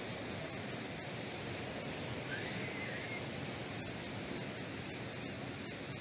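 Steady rush of water: ocean surf washing along the shore, with water trickling out of a tide pool down over seaweed-covered rock.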